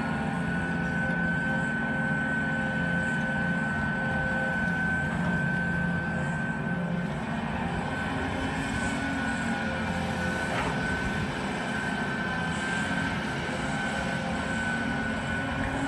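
Caterpillar 320D hydraulic excavator's diesel engine running steadily under working load as it digs, with a steady high whine over the engine note.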